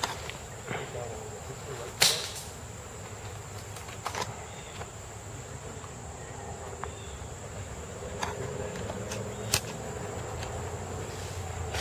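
A handful of single sharp snaps a few seconds apart, the loudest about two seconds in, over a steady high drone of insects.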